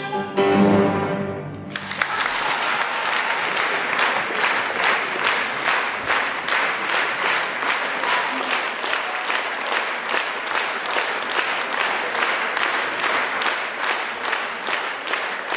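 A symphony orchestra with grand piano holds a final chord that dies away, and about two seconds in audience applause breaks out. The applause settles into steady clapping in unison, about three claps a second.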